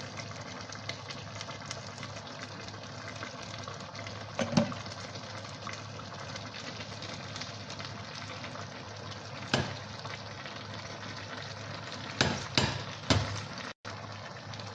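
A pot of vegetable soup cooking on the stove with a steady sizzling hiss. A few knocks against the metal pot come at intervals, with a quick cluster of them near the end.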